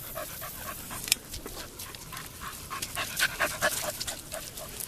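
A dog panting quickly and steadily, about four to five breaths a second, with a sharp click about a second in.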